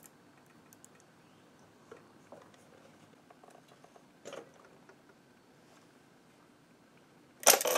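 Locking pliers working a bent sheet-metal plate on a winch control box: a few faint clicks and taps, then a short, much louder clatter of tool on metal near the end.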